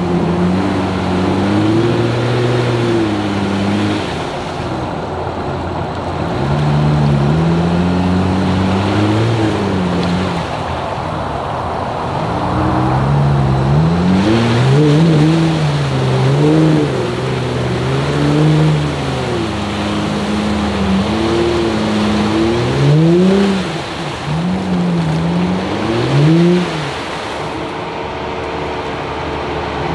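Jeep Wrangler's engine revving up and down as it pushes through deep swamp water, with water sloshing around it. The revs rise and fall repeatedly, in quicker, sharper blips from about halfway through.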